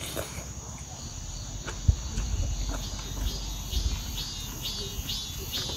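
Insects singing in a steady high drone, with a run of short chirps about twice a second in the second half. A single knock sounds about two seconds in.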